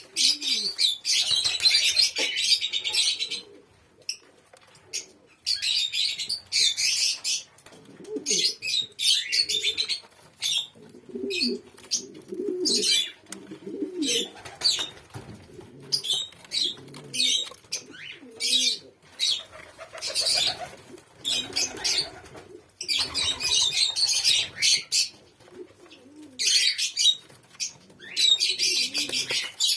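Doves flapping their wings in repeated short bursts, with low cooing calls between them, most in the middle stretch.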